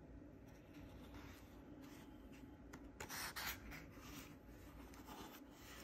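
A page of thick drawing paper in a handbound book being turned, a brief papery rustle about three seconds in, amid soft rubbing of fingers on paper.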